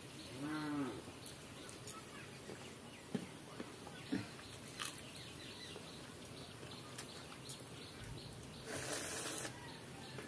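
People eating with their hands from steel plates: scattered soft clicks and scrapes of fingers and food against the metal. A short low call sounds once about half a second in, and a brief hiss-like rustle comes near the end.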